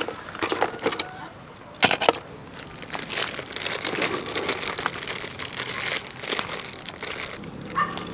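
Metal tongs and hard crab shells clicking and clattering on a metal plate as pickled crabs are moved about, an irregular run of small clicks and crackles with a couple of sharper knocks about two seconds in.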